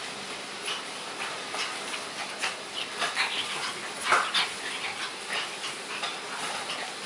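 A shih tzu and a pug puppy play-wrestling: short dog noises and scuffles, with a louder cry falling in pitch about four seconds in.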